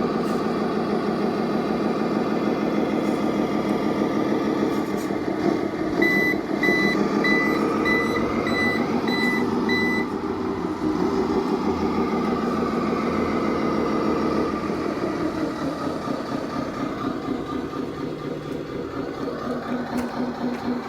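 RC truck sound module playing a simulated diesel truck engine that runs and changes in pitch. About six seconds in, a reversing alarm beeps about twice a second for roughly four seconds, then stops while the engine sound carries on.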